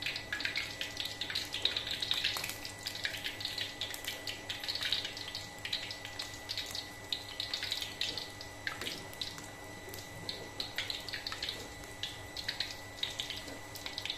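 Tempeh balls frying in hot oil in a wok: a crackling sizzle that comes in irregular bursts of sharp spitting as balls go into the oil.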